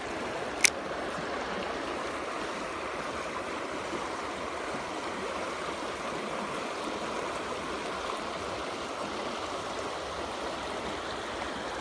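Creek water flowing steadily, a continuous rushing of the current. One sharp click comes about half a second in.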